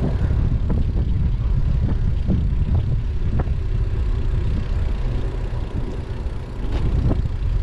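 Low, steady rumble of wind buffeting a bike-mounted action camera's microphone while the bicycle rolls along the road, with a few short knocks from the bike going over bumps.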